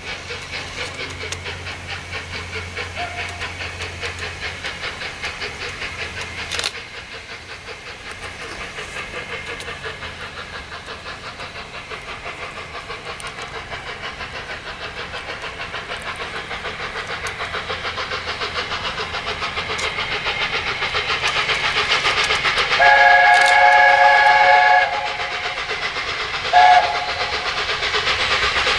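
Steam locomotive working hard, its exhaust beats fast and regular and growing louder as it approaches. Its whistle sounds one long blast about three-quarters of the way in, the loudest thing heard, then a short toot.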